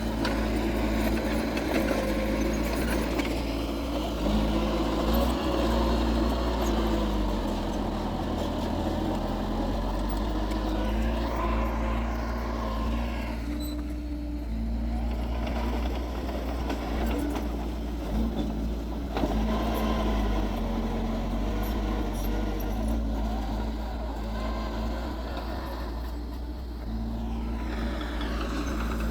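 Diesel engines of earthmoving machinery, a bulldozer and dump trucks, running continuously, the engine note shifting up and down.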